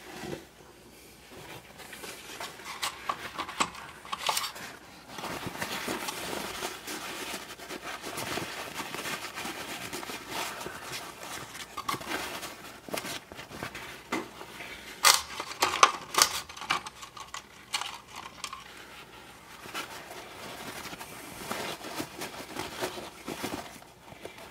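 Paper kitchen towel rustling and crinkling as small metal parts are rubbed dry in it, with a few sharp crackles about fifteen seconds in.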